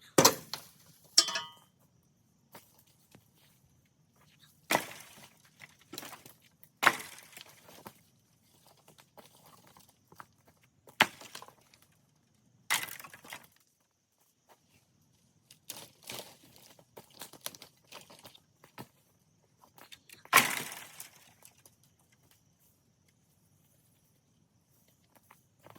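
Irregular sharp clinks and cracks, about a dozen spread out with quiet gaps between, the loudest about twenty seconds in.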